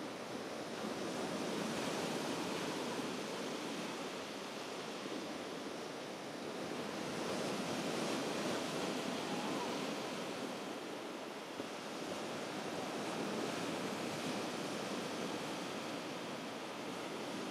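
Sea surf washing onto a beach: a steady wash that swells and eases three times, roughly every six seconds.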